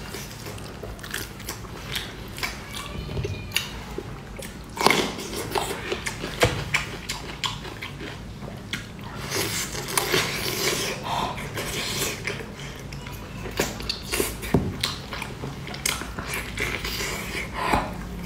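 Close-up eating sounds of braised pork knuckle being bitten, torn and chewed: wet, open-mouthed smacking and chewing with many irregular smacks.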